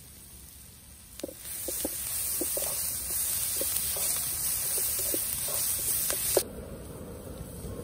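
Food sizzling in hot oil: a steady hiss with scattered small pops, starting about a second in and cutting off suddenly some five seconds later.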